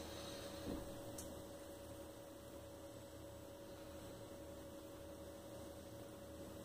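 EK-XTOP Revo Dual D5 water-cooling pump, powered by an old spare PSU, running with a faint steady hum and a thin steady tone above it, circulating coolant through a freshly filled loop being leak-tested and bled of air. A soft bump a little under a second in.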